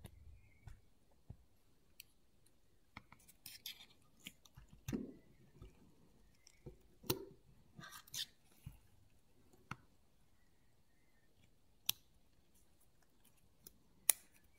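Quiet, scattered clicks and scrapes of a small metal hand tool and parts being worked into a SRAM Guide hydraulic brake lever body during piston reassembly. There is a louder scraping about five seconds in and a few sharp single clicks in the second half.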